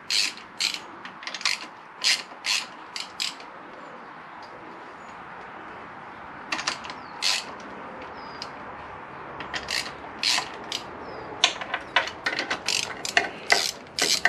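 Hand socket ratchet clicking in short runs as the camshaft bearing cover bolts on a Honda VFR800 VTEC engine are backed off a little at a time, easing the valve spring pressure on the cam evenly. The clicking pauses for a few seconds near the middle.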